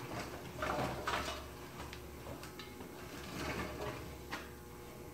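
Scraping, rustling and knocking of handling work under a car on a lift, in two spells about a second in and past the three-second mark, with a few sharp clicks.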